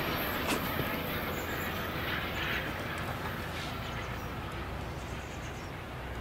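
Amtrak passenger train with a diesel locomotive at the tail passing on a curve and moving away, its wheels on the rails and its engine rumbling and slowly fading. There is a single sharp click about half a second in.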